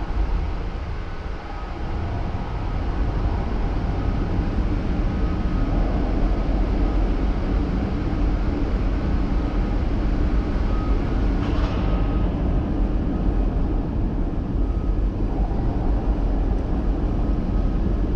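Overhead bridge cranes travelling along their runway rails: a steady low rumble with a faint whine above it, and a brief hiss about eleven seconds in.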